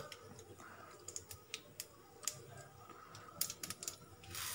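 Mustard seeds popping and spluttering in hot oil in an aluminium kadai: scattered, irregular sharp little pops. Near the end a louder hiss rises.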